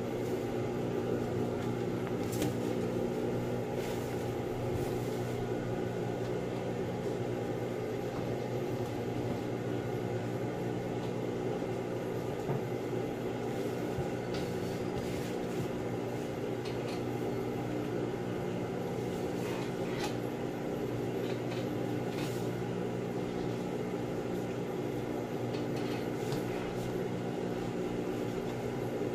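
Steady hum of an industrial sewing machine's motor running idle, with occasional soft crinkles of a plastic sheet being handled.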